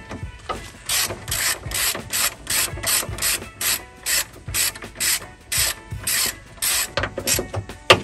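Socket ratchet with an extension clicking in quick back-strokes, about three a second, as it turns out a 10 mm bolt on the hood latch. A sharp knock comes at the very end.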